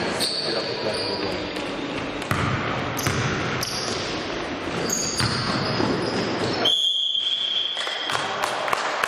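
Basketball game play in a gym hall: the ball bouncing on the court and sneakers squeaking, in a busy echoing hall. About seven seconds in, a single steady high tone holds for about a second.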